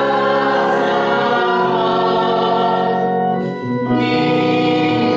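Church choir singing with organ accompaniment: long held chords that change every second or two, with a brief dip about three and a half seconds in.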